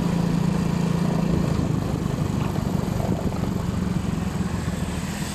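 A small engine running. Its steady low hum turns into an uneven rumble about a second and a half in.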